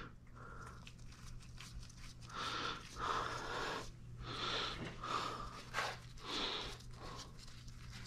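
A person breathing hard in repeated puffs, one every second or two, with the strain of cranking an engine over by hand with a ratchet. A faint, steady low hum runs underneath.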